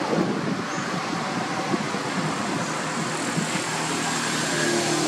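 Steady outdoor background noise with a few soft low knocks, and a low hum that comes in near the end.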